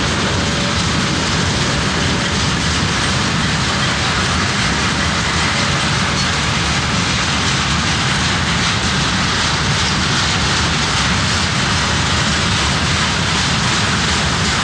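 Long freight train of railway tank wagons rolling past, a steady noise of wheels on rails, with a faint high whine in the first couple of seconds.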